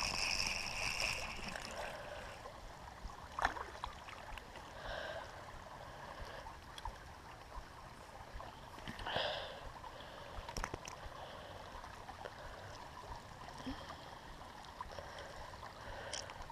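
Small creek running: a steady faint trickle of water, with a few brief sharp clicks scattered through.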